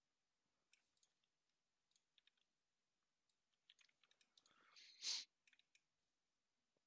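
Near silence, with faint scattered computer mouse clicks and one short hiss about five seconds in.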